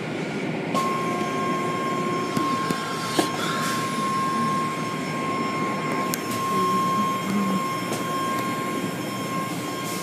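Automatic car wash machinery running: a steady rushing noise with a steady whine that sets in about a second in.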